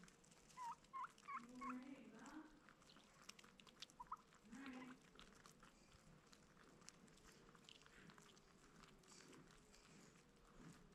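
Farm poultry calling faintly: a few short rising chirps in the first two seconds and low clucking calls around two and four and a half seconds in, over scattered light ticks.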